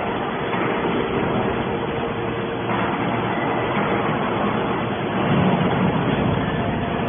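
YDF-63 hydraulic scrap metal baler running: the steady hum of its hydraulic power unit with a faint constant whine, swelling briefly a little past five seconds in.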